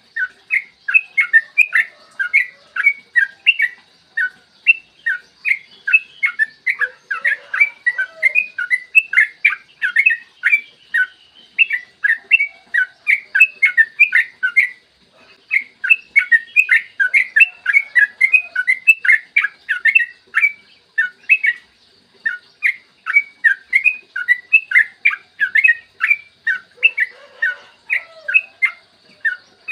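Yellow-vented bulbul (trucukan) singing a long, fast run of short chirping notes with hardly a pause, the rolling 'ropel' song used to tutor caged birds. The song stops briefly a few times.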